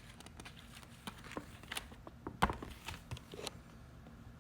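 A few light, irregular clicks and taps, the loudest about two and a half seconds in, from small parts being handled while screws are fitted to lock the electric scooter's handlebar in place.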